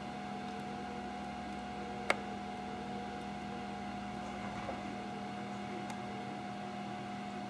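A steady hum carrying a couple of faint constant tones, with one sharp click about two seconds in.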